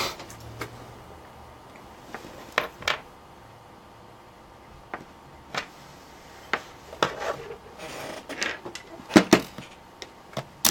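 Irregular light clicks and knocks of tools and parts being handled and set down on a workbench, about a dozen separate taps, busier in the second half.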